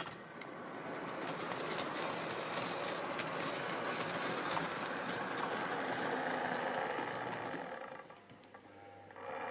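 Tri-ang model train of tank wagons and a diesel locomotive running past close by: a steady rattling run of wheels and motor with many small clicks over the track joints, dropping away briefly about eight seconds in before picking up again.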